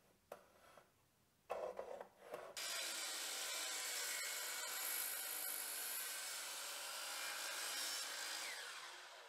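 DeWalt sliding miter saw with a red Diablo 100-tooth finishing blade crosscutting a maple board. The motor comes in unevenly about a second and a half in, then runs steadily through the cut for about six seconds before fading near the end. A few faint taps come before it.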